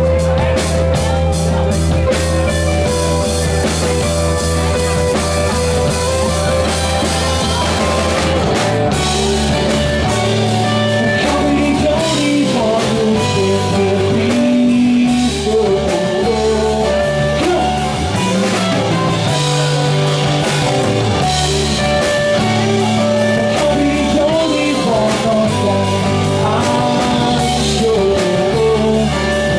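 Live rock band playing a song: acoustic and electric guitars over a drum kit, with a male lead singer.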